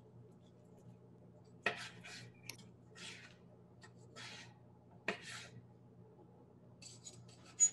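Knife slicing cooked chicken on a cutting board: a string of separate short cuts and scrapes, with utensils clicking against the board and a sharper clink near the end, over a faint steady hum.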